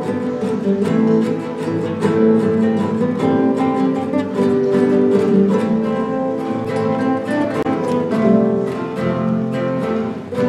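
Ensemble of classical guitars playing a piece together: plucked melody notes over strummed chords, with a brief dip in loudness near the end before the playing picks up again.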